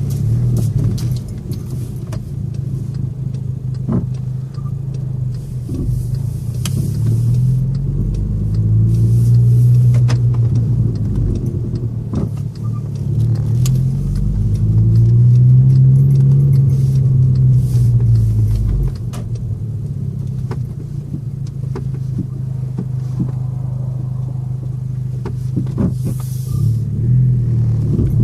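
VW Mk6 GTI's 2.0-litre turbocharged four-cylinder running, its engine speed rising and falling back a couple of times, with short sharp chirps sounding at irregular intervals from the engine bay. The owner cannot tell what is making the chirp.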